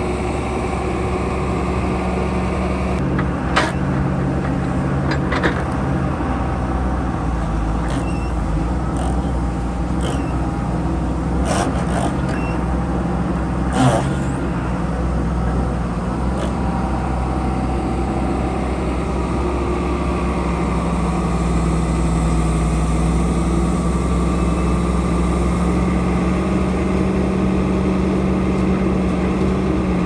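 Diesel engine of a wheeled knuckleboom log loader running steadily as it handles logs, its note stepping up about two-thirds of the way through. A handful of sharp knocks of logs striking come in the first half; the loudest is about halfway through.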